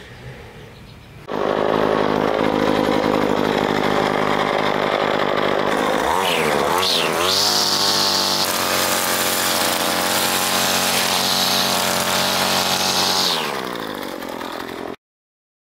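Ryobi ES30 string trimmer's two-stroke engine running steadily after a quiet first second, revving up and down about six seconds in. It then holds at high speed with a high whine as the line cuts grass, and eases off shortly before cutting out. The engine runs smoothly on a freshly cleaned carburetor with its idle just adjusted.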